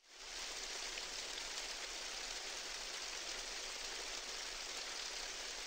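Steady, even hiss of water ambience, like rain or gently moving water, cutting in and out abruptly.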